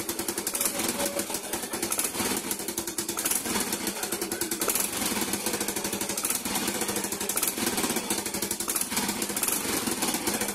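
Yamaha Mio i125 scooter's single-cylinder engine running, with a rapid pulsing exhaust beat. This scooter backfires faintly with a pok-pok on deceleration, which the owner traces to an exhaust leak at the rusted pipe.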